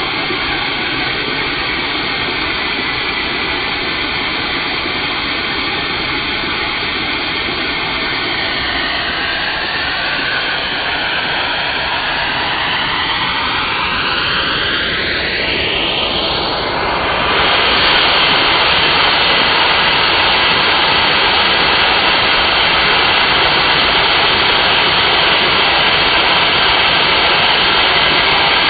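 Vacuum cleaner suction driving a LEGO vacuum engine through its hose: a loud, steady rushing whine. Its whistling tones slide down, then sweep sharply up, and about 17 seconds in the sound grows louder and stays steady.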